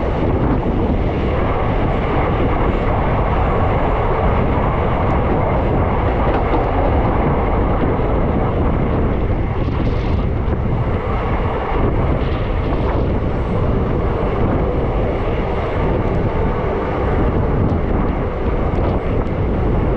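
Passenger train running along the track, a steady loud rumble and rush heard from the open doorway of a coach.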